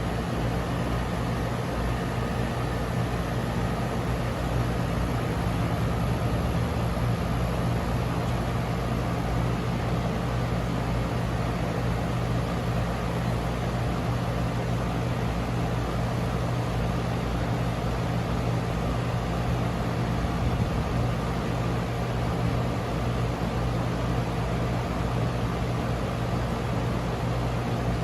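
2012 Ducane air conditioner running steadily just after its first start-up of the season: a low, even compressor hum under the rush of the condenser fan.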